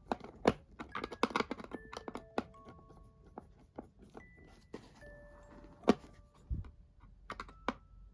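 Irregular sharp clicks and knocks of hard parts being handled, several loud ones among many light ones, over soft chime-like background music with single held notes.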